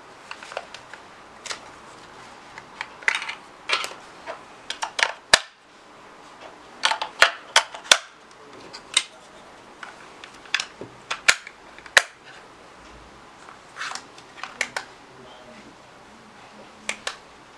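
Irregular sharp plastic clicks and snaps from handling a digital alarm clock's battery compartment: the cover being worked and AA batteries pressed into their slots, with a few louder snaps among lighter taps.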